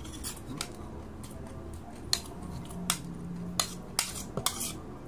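Dishes knocking and clinking as a white bowl is lifted and handled over the plates, with a string of about seven sharp knocks in the last three seconds.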